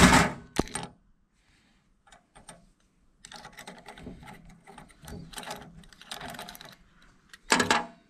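A steel pick scrapes and clicks against a snap ring deep in the bore of a K24 turbocharger's bearing housing, in a rapid run of small metallic taps and scratches, as the ring is pried out. A louder knock comes at the start and another near the end.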